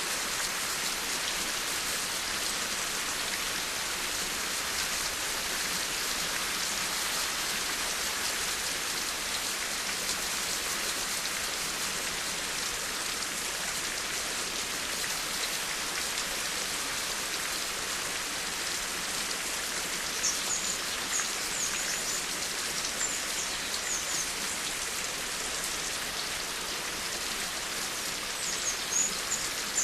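Steady rain falling, an even hiss of many drops. From about two-thirds of the way in, a bird chirps in short, high notes over the rain.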